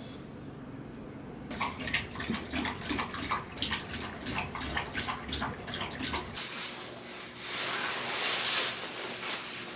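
Scattered light clicks and rustles, then about six seconds in a louder, sustained rustle of a puffy nylon sleeping bag being handled and spread out on the floor.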